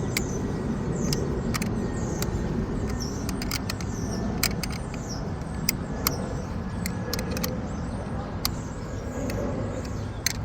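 Steady low vehicle rumble in the background, with scattered sharp clicks at irregular moments.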